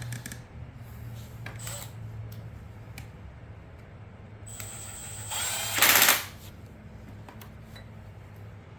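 Husqvarna 128LD string trimmer's small two-stroke engine running at idle while it is tested to see whether it will hold an idle. About five seconds in it is revved briefly, loudest near six seconds, then drops back to idle.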